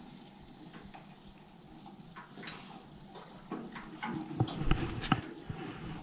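Irregular clicks and knocks of hands and tools on boiler piping fittings, growing busier toward the middle, with a few heavy thumps about four and a half to five seconds in.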